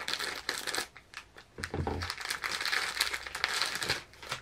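Thin clear plastic bag crinkling as it is cut open and a small folded garment is pulled out of it. The sound comes in two spells, a short one at the start and a longer, louder one from about two seconds in.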